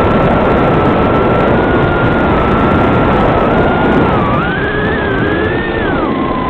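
Motors of a 130-size FPV racing quadcopter whining through the analog video link's audio, under heavy static hiss. The whine holds one pitch for about four seconds, then climbs, wavers and drops sharply near the end as the throttle changes.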